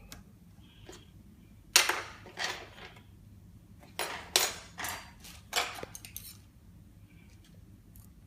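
Sharp knocks from tools and gearbox parts being handled on a workbench: about eight strikes in three quick groups, the first about two seconds in, each with a short ring.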